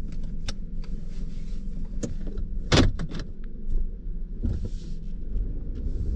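1996 Buick Regal engine idling smoothly and steadily, heard from inside the cabin, with a few light clicks and one sharp clunk about three seconds in; the engine note grows louder near the end.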